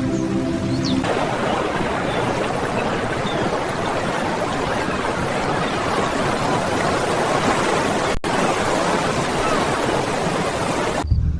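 Steady rushing noise of surf washing on a beach, cutting in about a second in as music ends, with a momentary break about eight seconds in.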